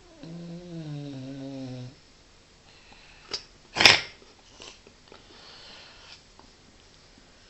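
Sleeping dog snoring: one long pitched snore lasting nearly two seconds, then a short snort and, a moment later, a much louder sharp snort about four seconds in.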